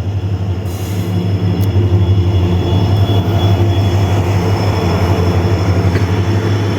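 A train running close by: a loud, steady low drone with a rumbling noise over it.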